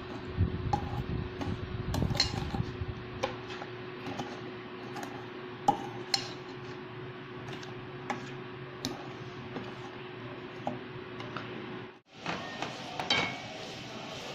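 Metal spoon stirring and scraping thick chili-garlic sauce in a stainless steel bowl, with irregular clinks of spoon against bowl over a steady low hum. The sound drops out suddenly about twelve seconds in, and a few softer knocks follow.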